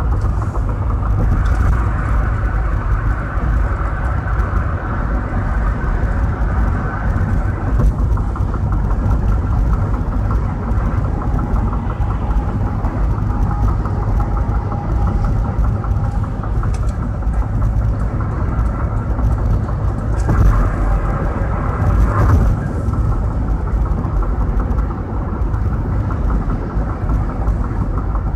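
Steady road and tyre noise of a car at freeway speed, heard inside the cabin as a low rumble, with a couple of brief louder swells about twenty seconds in.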